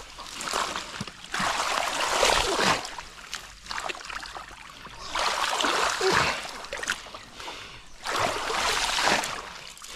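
Water splashing and sloshing in three surges a few seconds apart, as from someone moving or working in deep water.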